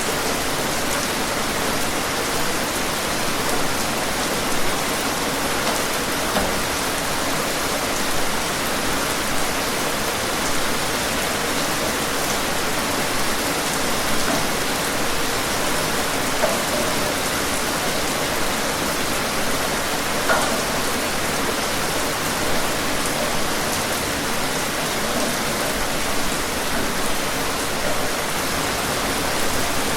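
Steady, dense rainfall, a continuous hiss with many small drops pattering on a surface and occasional slightly louder drop impacts.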